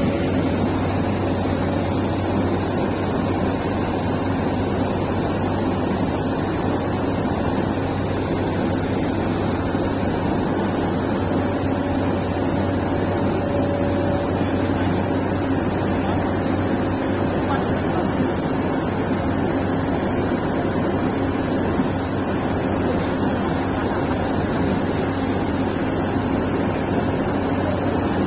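The engine of a heavy lifting machine running steadily, a constant low hum over a rushing noise, as it holds a concrete U-ditch section on slings.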